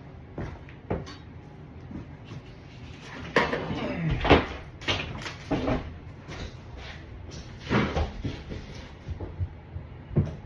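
Irregular knocks, thumps and scrapes of a drywall panel being worked loose and handled, with a cluster of louder bangs about four to five seconds in and another near eight seconds.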